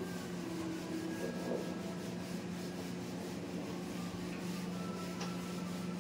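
Whiteboard eraser rubbing across a whiteboard, wiping off marker writing, over a steady low hum.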